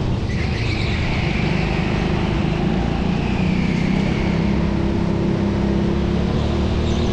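Racing go-kart engine running at fairly steady revs, with a high tyre squeal on the indoor track's smooth floor early on and again near the end.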